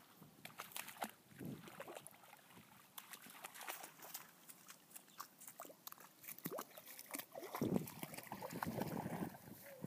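A dog moving along a grassy pond edge, with light rustles and clicks, then wading into shallow water near the end with a run of louder splashing.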